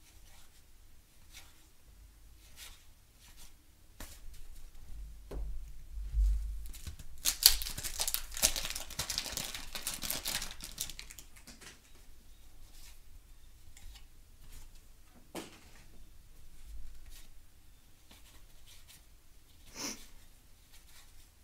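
Wax-paper wrapper of a 1991 Topps baseball card pack being torn and peeled open, a crinkling rustle lasting a few seconds midway. Around it are soft taps and slides of stiff cardboard cards being flipped through by hand.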